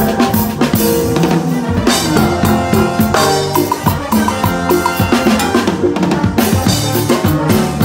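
Timbales played with sticks in a fast run of strokes and rim shots, with cymbal, over a Latin band playing live.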